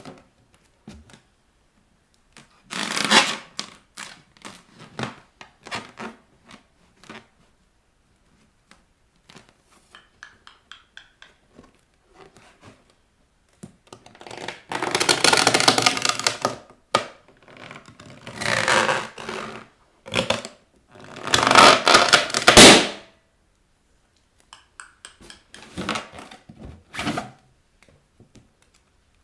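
Bare feet pressing and rubbing inflated rubber balloons: rubber squeaking and scraping in stretches of a few seconds, with scattered light knocks and taps in between.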